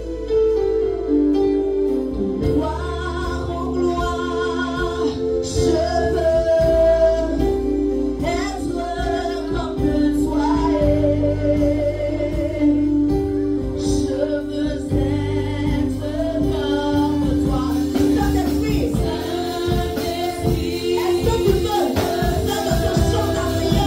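Live gospel worship song: women singing into microphones over held instrumental chords and low bass notes.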